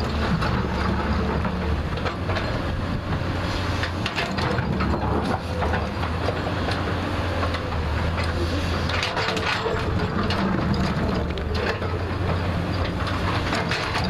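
JCB 3DX backhoe loader's diesel engine running steadily under load, with scattered cracks and crunches of soil and stone as the bucket cuts into the hillside.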